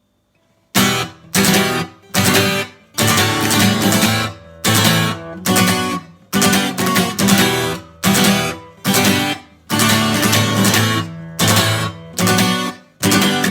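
A Soviet Lunacharsky-factory acoustic guitar from 1978, strummed in a choppy rhythm. The chords are damped into short gaps between strokes, beginning under a second in.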